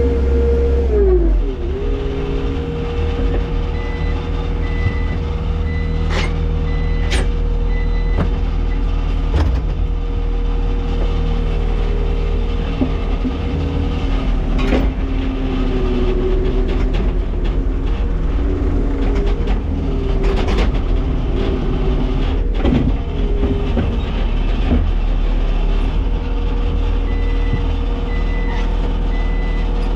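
Skid steer loader engine running steadily, heard from inside the cab, its pitch dropping about a second in and again at the very end. A backup alarm beeps in two spells, and a few sharp metal clanks come from the machine and its attachment.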